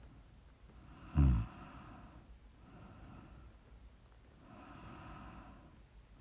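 A sleeping woman snoring: one loud, short snort about a second in, its pitch dropping quickly, then quieter breathing, with a longer drawn breath near the end.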